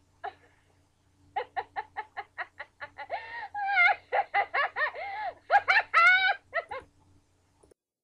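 Cartoon sound effect of rapid cackling: a quick run of short pitched cackles, about seven a second, then louder warbling calls that rise and fall in pitch, stopping a second before the end.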